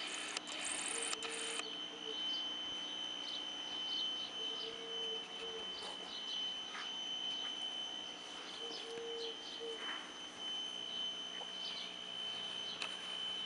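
Birds chirping, with a low hooting call about a second long that comes back every four seconds or so, and a steady high whine. A short burst of rustling noise at the start.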